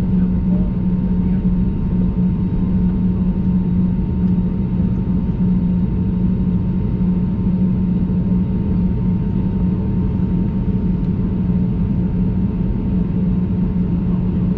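Steady cabin drone of an Airbus A320neo taxiing, its CFM LEAP-1A engines at low taxi thrust, with a strong, even low hum.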